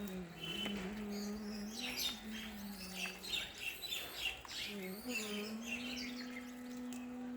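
Small birds chirping in a rapid chatter over a steady low hum.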